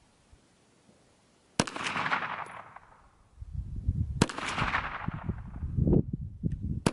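Slow semi-automatic fire from a KelTec PMR-30 .22 Magnum pistol: sharp shots about a second and a half in and about four seconds in, with a third right at the end, each trailing off in an echo. The pistol keeps cycling and feeding round after round without jamming. A low rumble runs underneath after the first shot.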